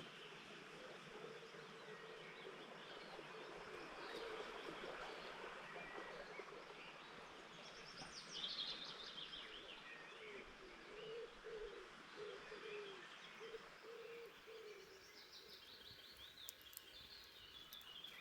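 Faint woodland birdsong: a high trill falling in pitch about eight seconds in, another run of high falling notes near the end, and a string of lower, short repeated calls in between.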